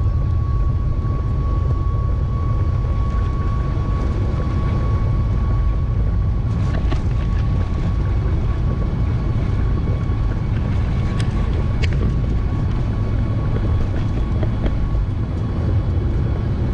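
Cabin noise inside a Boeing 737 MAX 8: a steady, loud low rumble of its CFM LEAP-1B jet engines and airflow, with a steady whine above it. A few faint ticks come through about halfway in.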